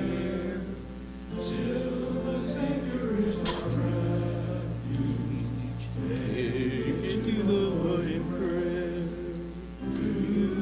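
A group of voices singing slow church music with long held notes. A steady low accompanying note is held for a couple of seconds near the middle.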